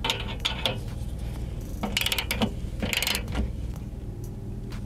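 Ratcheting digital torque wrench with a crowfoot clicking in short bursts, in three groups over the first three and a half seconds, as a half-inch receiver hitch bolt is tightened toward 110 ft-lb.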